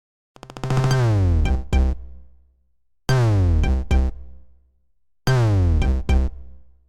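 Stock Android 2.3 ringtone from the Samsung Nexus S: a synthesized tone sliding down in pitch, followed by two sharp drum-machine hits. The phrase plays three times, about every two and a half seconds.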